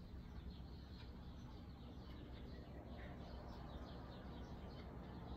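Faint birdsong: a bird chirping a rapid run of short high notes over low background noise.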